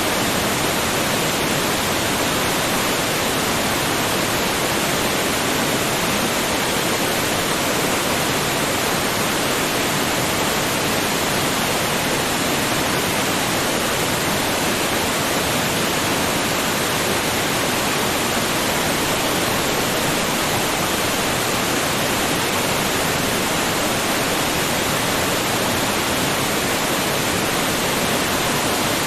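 Waterfall: a steady, even rush of falling water without pause or change.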